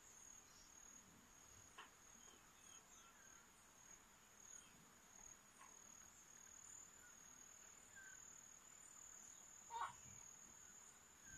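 Faint outdoor ambience: an insect's steady high trill runs throughout, with a few faint, short chirps scattered over it. A single brief, sharper sound stands out near the end.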